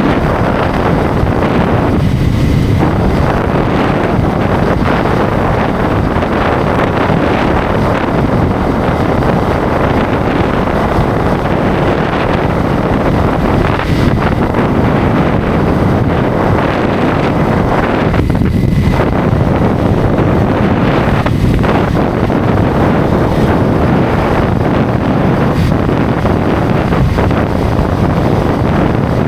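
Wind buffeting the microphone of a motorcycle at highway speed, a loud steady rush mixed with engine and road noise. The rush dips briefly a few times.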